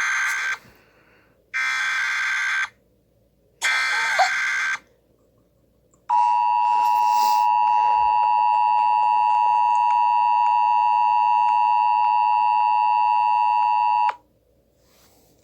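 Emergency Alert System required weekly test: three short bursts of digital data tones (the SAME header), about a second apart, the first already under way, then the two-tone attention signal held steady for about eight seconds before cutting off.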